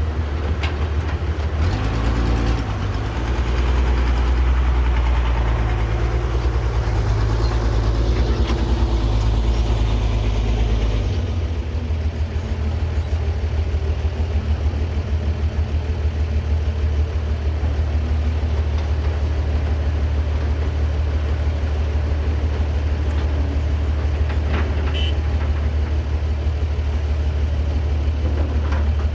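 Diesel engine of a Caterpillar 312B hydraulic excavator running under load. It works harder and louder from about two seconds in until about eleven seconds, then settles back to a steady, lighter run.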